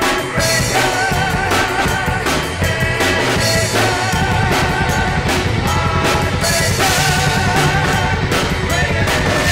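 Rock song playing with a singer's held, wavering notes, and a drum kit played along with it: steady beats with cymbals and bass drum.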